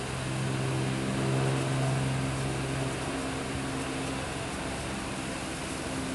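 A steady low machine hum with several overtones, which grows a little fainter about three seconds in.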